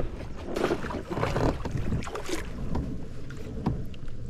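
Water sloshing and irregular knocks around a fishing kayak, with wind buffeting the microphone.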